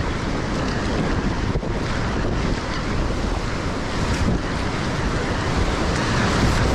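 Steep class 5 creek whitewater rushing steadily around a kayak, with the paddle blades splashing through the water.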